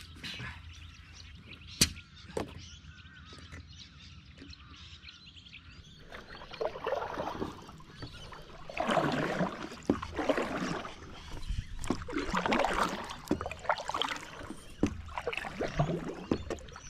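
Paddle strokes from a stand-up paddleboard: the blade dips and pulls through the water in splashy swells about every second and a half. Before that come the last strokes of a hand pump inflating the board and a sharp click about two seconds in.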